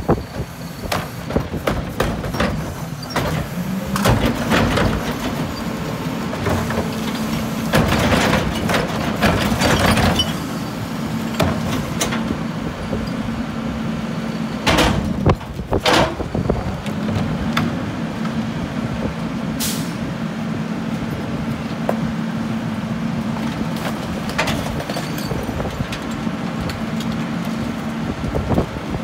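Mack rear-loader garbage truck's engine speeding up about three seconds in as the Heil hydraulic packer engages, then holding a steady hum while the packer blade cycles. Recycling carts are tipped into the hopper several times, with cardboard, bottles and cans clattering in.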